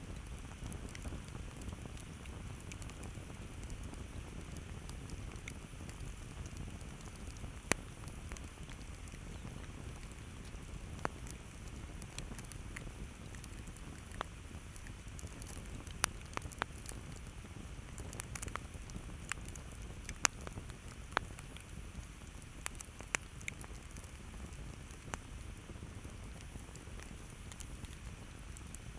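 Campfire burning with a low steady rumble and scattered sharp crackles and pops from the burning wood, more frequent in the middle of the stretch.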